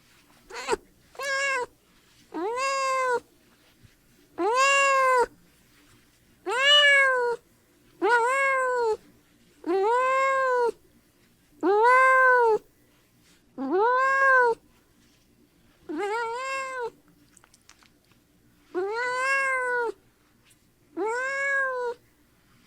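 Domestic cat meowing over and over: about a dozen drawn-out meows, roughly one every two seconds, each rising and then falling in pitch.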